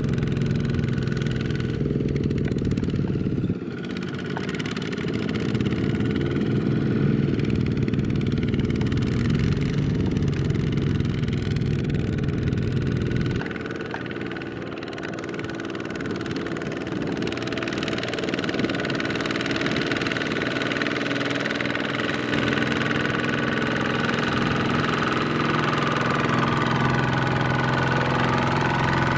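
Single-cylinder diesel engine of a Kubota two-wheel walking tractor running under load in deep mud. Its note drops and softens about four seconds in and again around thirteen seconds, then builds back up and gets fuller in the second half.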